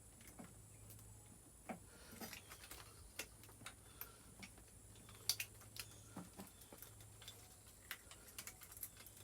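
Faint, irregular clicks and light taps from small parts being handled during hand work on a motorcycle carburetor and its throttle cables, over a low steady hum.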